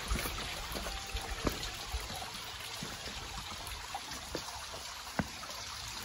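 Water trickling and running over rocks in a rocky gorge: a steady, soft wash, with a few faint clicks.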